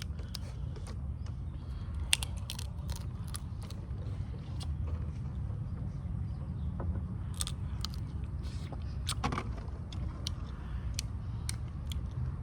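Steady low outdoor rumble, like distant road traffic, with scattered small clicks, crackles and rustles of food and containers being handled.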